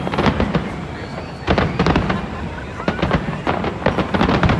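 Fireworks display: many rapid, overlapping bangs and crackles, coming in dense clusters at the start, about a second and a half in, and again near the end.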